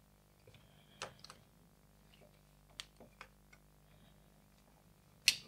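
Scattered light clicks and taps of a screwdriver working the screw clamps of a plastic wiring terminal block, with a sharper knock near the end.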